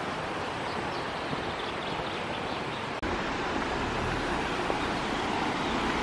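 Steady rushing of a rocky mountain stream flowing over small cascades. It cuts out briefly about halfway through, then returns slightly louder.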